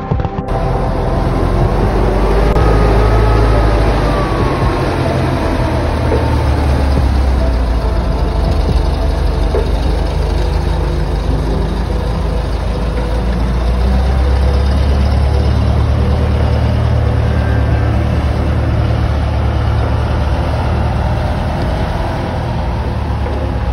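Engine of a Hetzer-style tracked tank destroyer running as it drives, a deep steady engine note with a whine that rises and falls about two to four seconds in.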